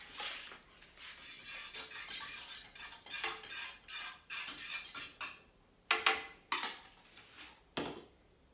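A utensil stirring and scraping noodles in a pot on the stove, a run of rasping strokes, then three sharp clinks against the pot in the last few seconds.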